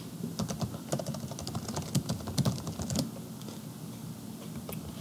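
Typing on a computer keyboard: a quick run of key clicks for about three seconds, then only a few stray clicks.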